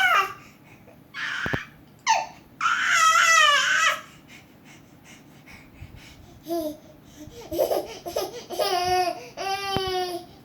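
High-pitched vocal squeals, the longest one falling in pitch, followed by a quieter pause and then several seconds of lower babbling vocal noises.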